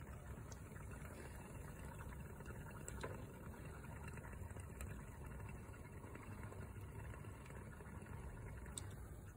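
Faint fizzing and crackling of foam carburettor cleaner bubbling inside the carburettor as dirty foam works out of the air vent, over a low steady rumble.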